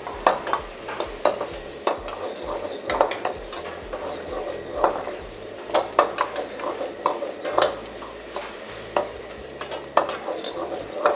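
Metal ladle scraping and clinking against a wok while vegetables are sautéed in hot oil: a steady sizzle under irregular, quick clanks of the ladle.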